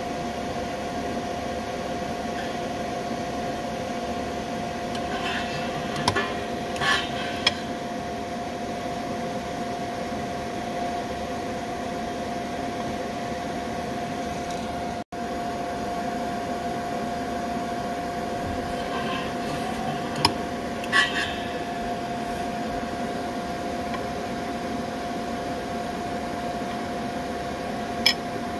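Steady hum with a faint held tone from a micro resistance spot-welding bench, broken by a few short sharp clicks: a cluster about a quarter of the way in, a pair about two-thirds in, and one near the end, as the weld head fires on a fine platinum wire. The sound cuts out for an instant halfway through.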